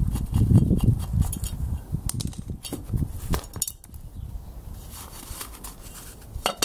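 Clinks and light knocks of a metal pot lid being handled and set back onto a cooking pot, with a sharper clink near the end. A low rumble runs under the first couple of seconds.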